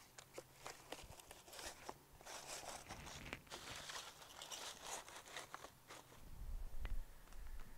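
Cardboard sheets being handled and laid on the ground: crackling, rustling and scraping, with a dull low thud near the end.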